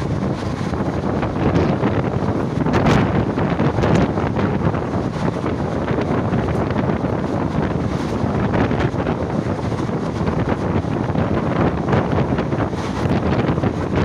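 Wind buffeting the microphone at the open door of a moving passenger train, over the train's steady running noise.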